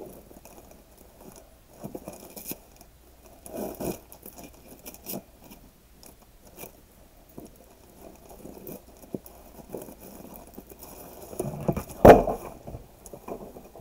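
Hands pulling a wide sheer glitter ribbon off a paper-wrapped gift box, with scattered rustling of ribbon and wrapping paper and scraping of the box on a cutting mat. Near the end, one loud thump as the box is shifted.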